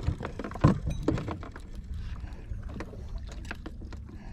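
Steady low rush of wind and water around a small outrigger boat, with scattered sharp clicks and taps of split-ring pliers and metal jig hardware handled close by; the loudest tap comes less than a second in.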